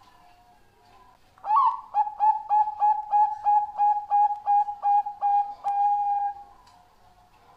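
Zebra dove (perkutut bangkok) singing: an opening coo followed by a fast run of short cooing notes, about four a second, ending in one longer drawn-out note.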